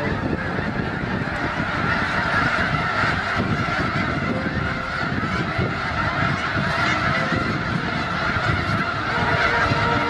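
A large flock of snow geese calling all at once: a dense, unbroken din of overlapping honks that stays steady throughout.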